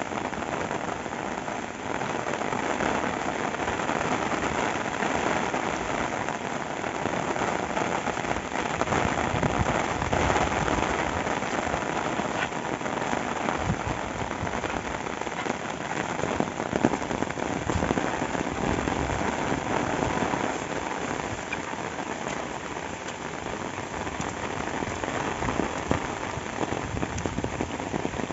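Steady rain falling, a dense patter of drops with no let-up.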